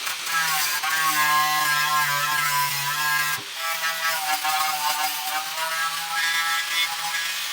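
Angle grinder with a wire wheel running under load, its motor hum wavering in pitch as it is pressed, with a dense scraping hiss from the wire bristles stripping old JB Weld off metal. It lets up briefly a little over three seconds in.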